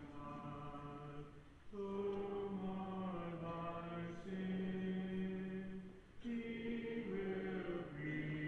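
Church of Christ congregation singing a hymn a cappella, unaccompanied voices holding long notes phrase by phrase with short breaks between phrases.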